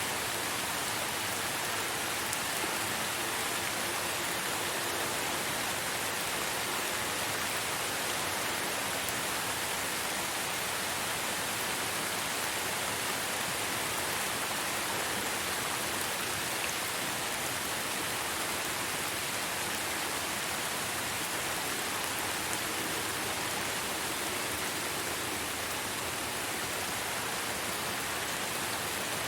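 Steady heavy rain falling, an even hiss with no breaks or distinct drops.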